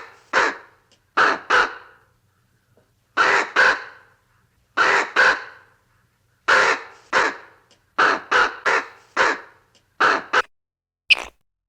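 Harsh, short animal calls repeated about a dozen times, mostly in pairs.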